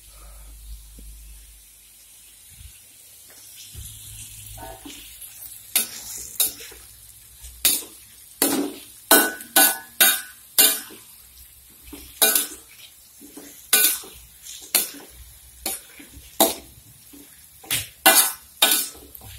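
A metal utensil stirring in a metal cooking pot, clanking sharply against it at irregular intervals, the clanks starting about five seconds in and ringing briefly.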